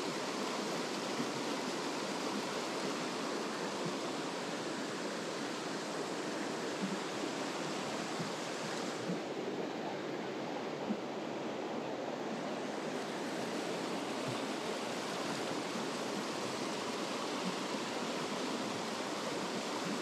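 Steady rush of a rocky mountain stream's rapids and small cascades, an even hiss of flowing water that turns briefly duller a little before halfway.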